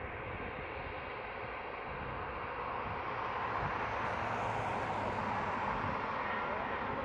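Jet airliner engines, a steady rushing noise that grows louder and brighter about halfway through.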